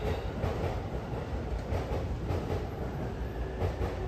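Steady low rumble and hum of the Sunrise Seto sleeper train standing at the platform with its doors open, its onboard equipment running.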